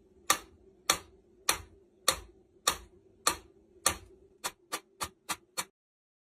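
A series of sharp ticks or clicks over a faint steady hum, evenly spaced about every 0.6 seconds, then quickening to about four a second for the last few before stopping.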